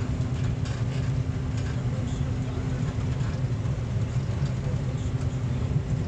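Combine harvester running steadily under harvest load, heard from inside the cab: a constant low engine and machinery drone with a steady hum.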